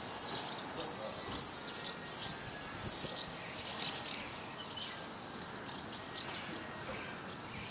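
Many small birds chirping at once, a dense chatter of short high chirps that eases off somewhat in the middle.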